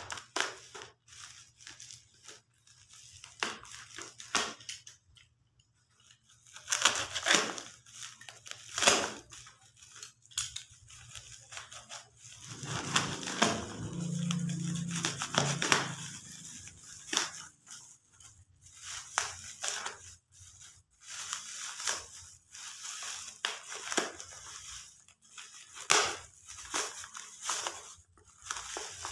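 Black plastic parcel wrapping being cut open with a small blade, then torn and crumpled by hand: uneven crinkling and tearing, with a denser stretch of rustling about halfway through.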